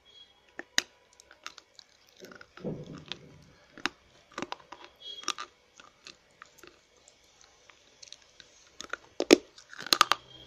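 Slate pencils being bitten and chewed: dry, crisp crunching in irregular snaps, growing louder and more frequent near the end.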